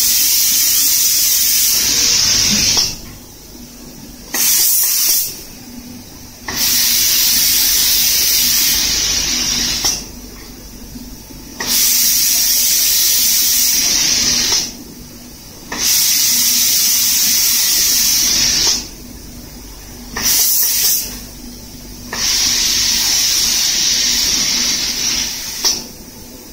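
Air spray guns of an automatic reciprocating spray painting machine hissing as they spray paint, in bursts of a few seconds that cut off for a second or so about six times. A faint steady hum runs underneath.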